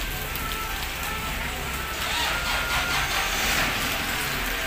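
Steady rain falling on wet pavement and puddles. About two seconds in, a louder rushing hiss swells for a second and a half and then eases back.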